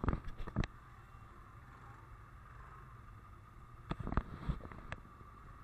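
ATV engines idling steadily with a low rumble, broken by two brief clusters of sharp knocks and rattles, one at the start and one about four seconds in.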